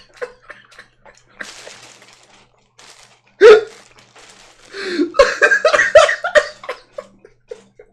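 A person's non-speech vocal sounds: one sharp, loud vocal burst about three and a half seconds in, then a quick run of short, hiccup-like bursts of stifled laughter.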